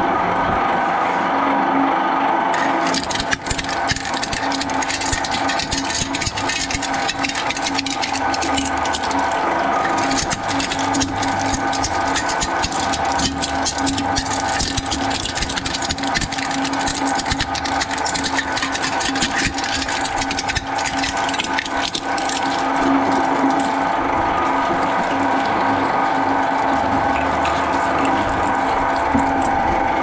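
Twin-shaft shredder running with a steady mechanical drone. From about three seconds in come dense crackling and grinding as its cutter discs chew through material, a ribbed metal bar among it. The crunching thins out in the last several seconds, leaving the machine running.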